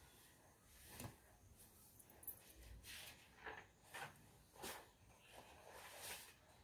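Near silence: faint room tone with a few soft, brief rustles or breaths.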